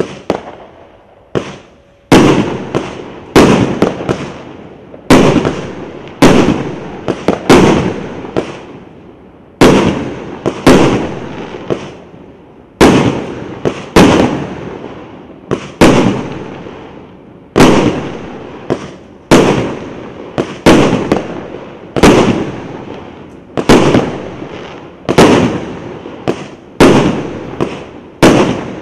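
A 1.2-inch, 25-shot multi-shot fireworks cake firing shell after shell: loud sharp bangs about a second apart, many in close pairs, each trailing off over about a second.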